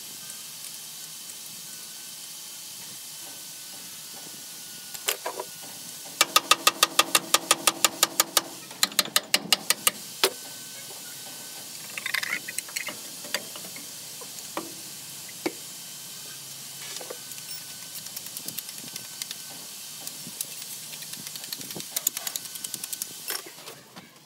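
Hand tools working on a diesel engine's bolts: a ratchet wrench clicking in two quick runs, followed by scattered metal clinks and knocks, over a steady hiss.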